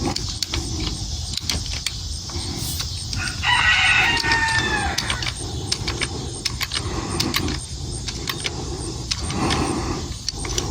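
Hand-pumped hydraulic wire crimper being worked, with scattered short metal clicks from the handle and tool. A rooster crows once about three and a half seconds in, the loudest sound.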